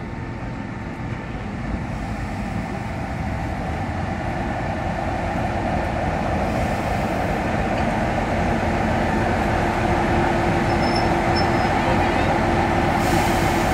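Class 45 diesel-electric locomotive's Sulzer twelve-cylinder engine running as the locomotive rolls slowly in, a steady engine drone that grows louder as it draws closer.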